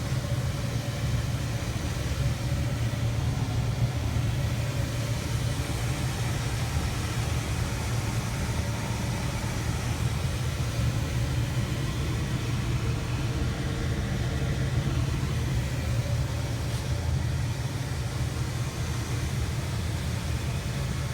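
A steady low rumble with no change and no distinct events.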